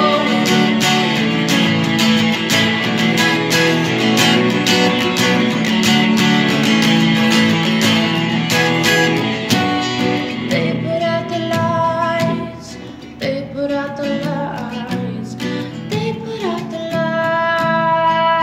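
A woman singing to her own strummed acoustic guitar. The strumming is busy through the first half, then thins out past the middle, where the voice holds long notes.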